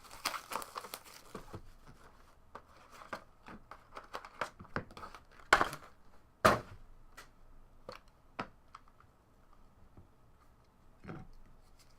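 Trading card box and pack wrappers being opened by hand: plastic wrap crinkling and tearing, with packs and cards handled in a string of sharp clicks and snaps. The two loudest snaps come about five and a half and six and a half seconds in.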